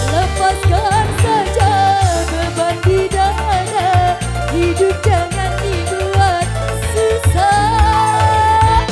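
Live dangdut music from an orgen tunggal keyboard band: a steady bass and drum beat under an ornamented lead melody full of bends and trills, which settles into a long held note near the end.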